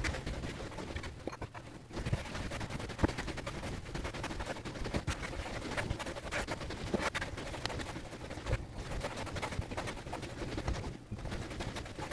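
Bread dough being kneaded by hand on a silicone baking mat, played fast-forward, so the pressing, folding and slapping runs together into a rapid, dense patter of soft thumps and clicks.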